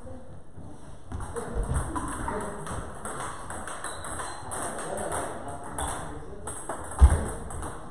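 Scattered light taps of table tennis balls on tables and bats in a table tennis hall, with one loud low thump about seven seconds in.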